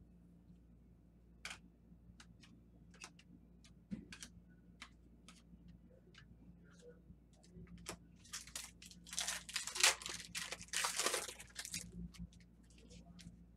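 Trading cards handled by hand: scattered light clicks and taps of cards against a plastic display stand, then, from about 8 s to 11.5 s, a louder stretch of crinkling and tearing, as of a foil card pack wrapper being torn open.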